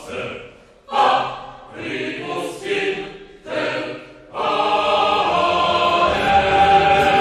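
Dramatic film-score music: chanted choir phrases in short separate bursts, then a fuller, continuous choral music bed comes in just over four seconds in and carries on.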